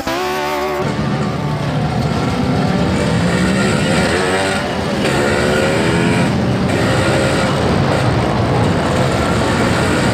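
Yamaha RX King 135 cc two-stroke single-cylinder engine running on the move, revving up and down a few times in slow traffic, heard from the rider's seat. The uploader lists it as a stock exhaust hollowed out in the middle.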